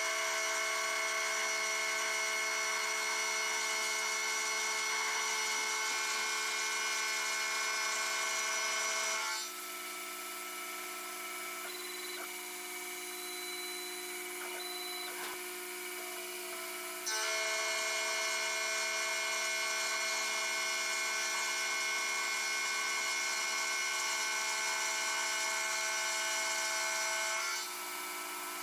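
Taig CNC micro mill's single-flute 6 mm end mill cutting aluminium, a steady whine with many high tones. About nine seconds in it drops to a quieter spindle hum with a few light clicks, and the cutting sound starts again around seventeen seconds in, stopping near the end.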